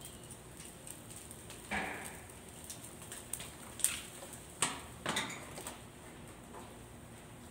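Wire grill basket of chicken legs rattling and knocking against the metal brazier frame as it is lifted, flipped and set back down over the charcoal. A few separate clanks, the loudest about four seconds in.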